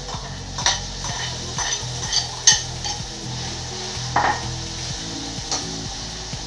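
A metal spoon scraping and clinking against a glass bowl and a kadai as food is tipped into the pan and stirred, over a sizzle of frying. There are several sharp clinks, the loudest about two and a half seconds in.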